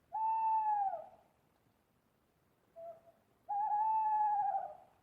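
Owl hooting: a long hoot that drops in pitch at its end, a brief short note, then a longer hoot with a wavering quaver.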